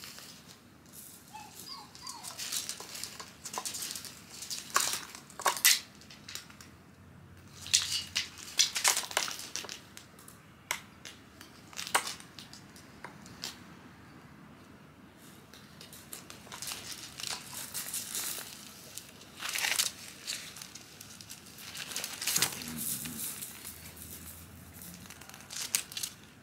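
Irregular crinkling and rustling in short scattered bursts, some sharper than others.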